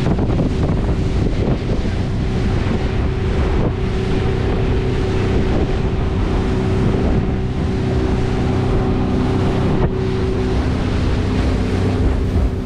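A 250-horsepower outboard motor running steadily at speed on a panga, with water rushing past the hull and wind buffeting the microphone.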